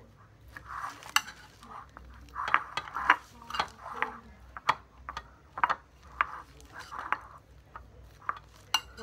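A spoon clicking and scraping against a ceramic bowl as rice is stirred and mixed in it, in a run of repeated knocks.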